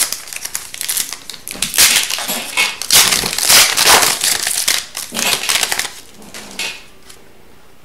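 Foil wrapper of an Upper Deck Series 2 hockey card pack being torn open and crinkled in the hands, with loud crackling for a few seconds that dies down near the end as the cards are slid out.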